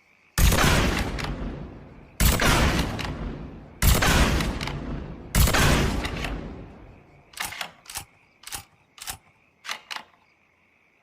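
Sound effect of a Model 67 sniper rifle: four single shots about a second and a half apart, each trailing off in a long echo, followed by a quick run of six or seven short sharp clicks.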